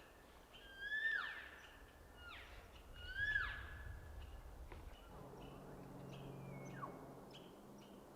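Distant bull elk bugling: two high whistling calls about two seconds apart, each rising to a held note and then dropping sharply, with fainter falling calls later on.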